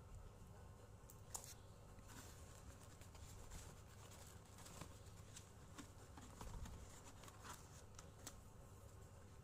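Faint, scattered small clicks and rustles of a parcel's packaging being handled, over a low steady hum.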